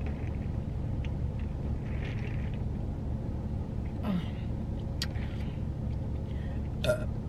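A woman's burp, brought on by sips of carbonated orange soda, over a steady low rumble inside a car.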